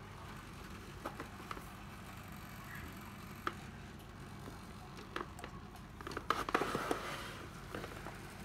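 Light clicks, taps and rustles of a cordless screwdriver's battery pack and a multimeter being handled while the battery terminals are found and probed. The clicks are scattered, with a busier cluster about six to seven seconds in, over a low steady background hum.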